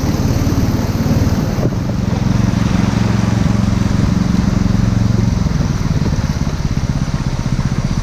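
Longboat outboard motor running steadily under load while pushing upriver, its note shifting about a second and a half in and easing a little past the middle. River water rushes under the hull.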